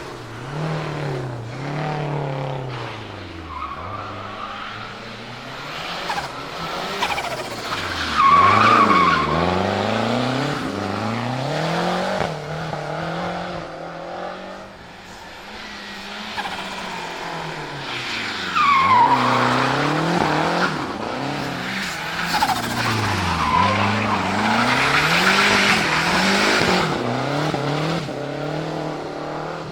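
Turbocharged four-cylinder engine of a 1974 Fiat 124 Spider Abarth drifting, its revs rising and falling over and over, with tyre squeal that gets louder about eight, nineteen and twenty-five seconds in.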